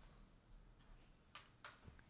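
Near silence: room tone, with two or three faint clicks in the second half.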